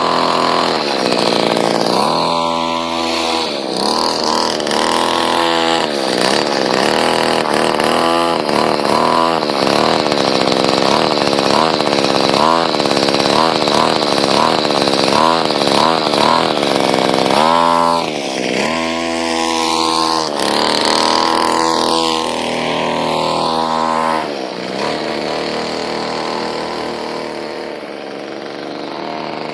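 Weed-eater two-stroke engine in a homemade RC car, revving in many quick throttle blips, then a few longer rev rises and falls, settling to a lower steady run near the end.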